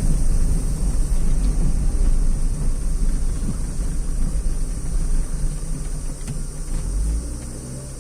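A vehicle driving, with a steady low road rumble that eases off a little near the end.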